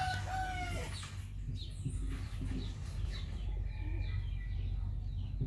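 A rooster's crow holding a long note and trailing off about a second in, followed by chickens clucking, over a steady low hum.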